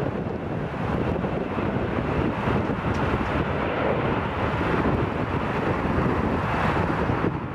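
Airbus A321-211's CFM56 turbofan engines at high power as the jet rolls down the runway, a steady loud rushing roar.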